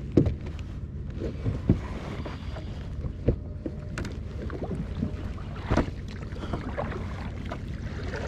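A double-bladed kayak paddle being picked up and worked against a small plastic kayak, giving several sharp knocks, the loudest right at the start. Paddle strokes then start in the water.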